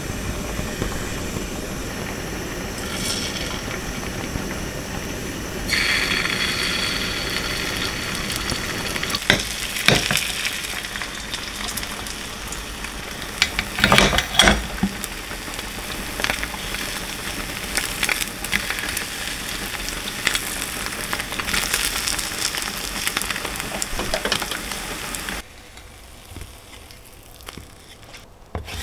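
Beaten egg sizzling in hot oil in a nonstick frying pan on a gas burner. The sizzle steps up louder and brighter about six seconds in, with a few sharp knocks along the way. It drops away near the end.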